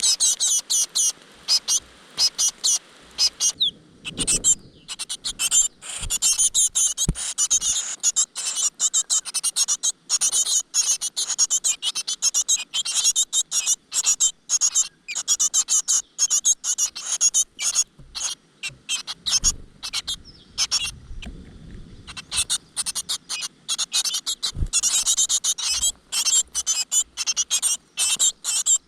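Great tit nestlings begging: a dense, continuous chorus of rapid, high-pitched cheeping calls, with a few soft low bumps now and then.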